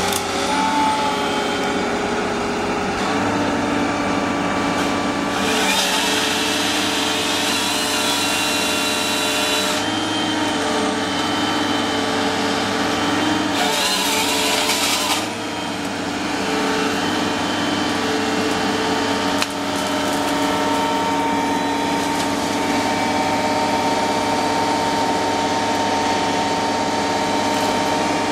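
The machine carrying the Groeneveldt LumberJack 450 shear gripper runs steadily under its engine and hydraulics, while the gripper's saw unit cuts with its chain twice: about five seconds in for some four seconds, and again briefly about halfway through.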